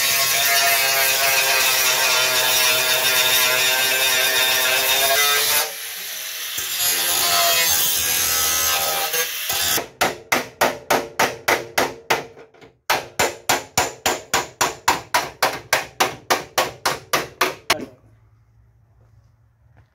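Angle grinder cutting into a steel car body panel, a loud steady whine for about six seconds before it winds down. About ten seconds in, rapid even hammer blows on the sheet metal begin, three or four a second, with a short break partway, and stop about two seconds before the end.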